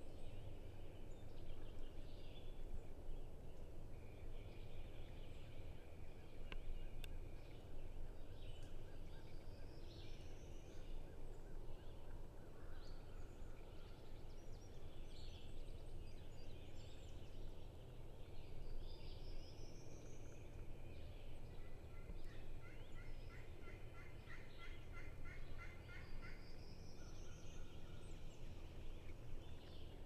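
Turkey calling in the woods: a run of evenly spaced calls about two-thirds of the way through, with songbirds singing here and there and a low steady rumble of wind.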